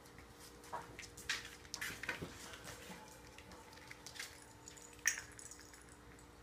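Puppies' claws and paws clicking and scuffling on a tile floor as they play, in scattered short taps, the sharpest about five seconds in. A faint steady hum sits underneath.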